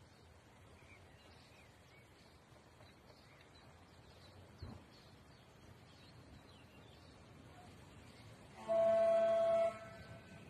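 Approaching train's horn sounding one steady blast of about a second near the end: the warning for a level crossing that has only warning crosses and no lights or barriers.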